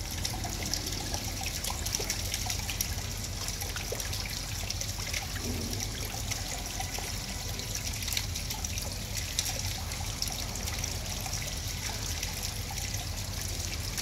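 Steady trickle and splash of water into a koi pond, with small splashes from koi churning at the surface.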